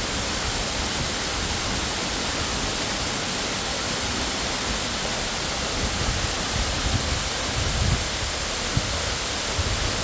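Waterfall pouring into its pool: a steady, even rush of falling water, with a few soft low thumps in the second half.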